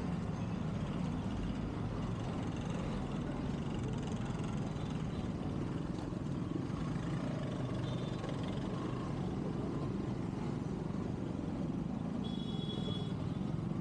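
Steady road noise of a motorcycle running in traffic: engine and wind rush with no changes, and a brief high tone near the end.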